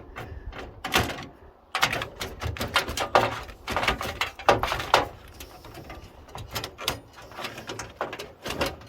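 Irregular clicks, scrapes and knocks as screws are worked out of a desktop computer's motherboard, with tools and metal parts knocking against the computer case.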